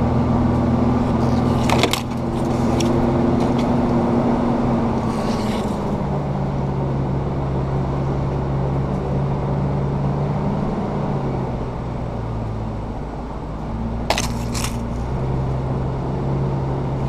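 Off-road truck's engine running at low trail speed, its note dropping and rising a few times with the throttle, with brief body and gear rattles as it rolls over bumps, the sharpest about two seconds in and again near the end.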